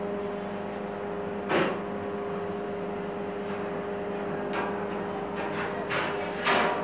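A steady machine hum with several fixed pitches, broken by a few short, sharp clatters: one loud clatter about a second and a half in, and a cluster of them near the end.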